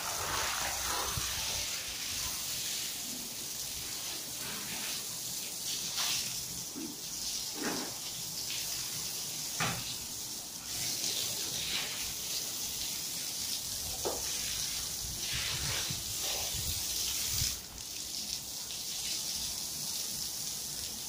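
Water spraying or running, a steady hiss with irregular splashes and knocks, as in washing down dusty ground or a vehicle.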